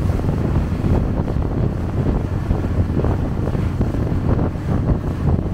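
Wind buffeting the microphone aboard a moving lake boat, a steady low rumble.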